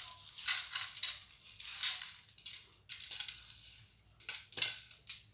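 Soaked parboiled rice being tipped and pushed off a plate into a non-stick frying pan: the grains spill onto the pan in several short bursts of gritty, hissing noise.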